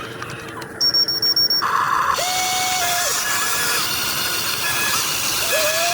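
Small electric motor of a radio-controlled excavator whining as it runs: it spins up about two seconds in, drops off about a second later, and starts again near the end. A short burst of hiss comes just before the first run.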